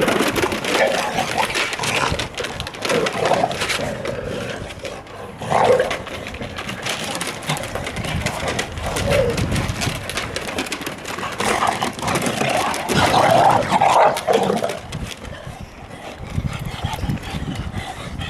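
Shar-pei puppies playing rough, giving short calls now and then, with strong wind buffeting the microphone throughout.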